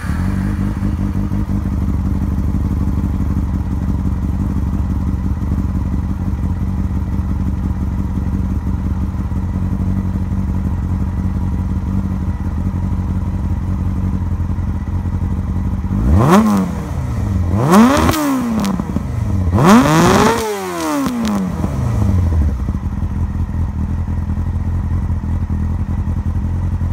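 2001 Yamaha R6's inline-four engine running through a custom exhaust: idling steadily, then revved three times in quick succession about two-thirds of the way in, each rev rising and falling back, the third going highest and longest, before settling back to idle.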